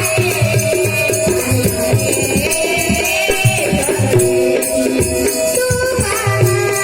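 Marathi devotional bhajan being sung by children's voices over a harmonium, with regular drum strokes and jingling hand percussion.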